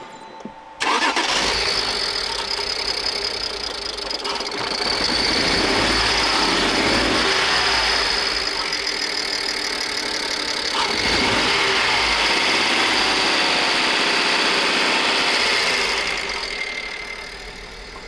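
BMW N53 inline-six petrol engine started about a second in, catching at once and running; its sound swells louder for a few seconds twice and drops back near the end. This is the first start on newly fitted injectors, running while the fuel system bleeds itself.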